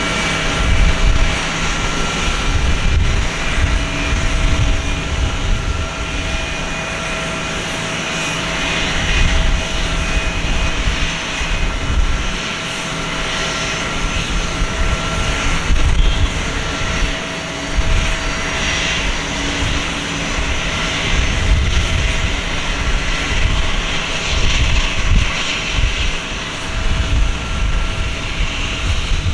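Airbus A321 jet airliner's turbines running during pushback: a steady whine made of several held tones over a loud, uneven low rumble.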